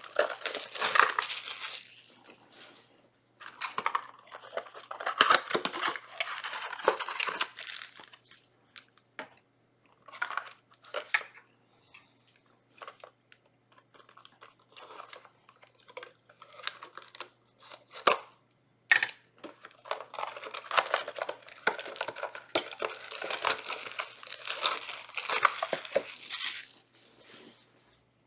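Yu-Gi-Oh booster pack wrappers being torn open and crinkled in the hands, in several bursts of rustling separated by pauses with a few short crackles.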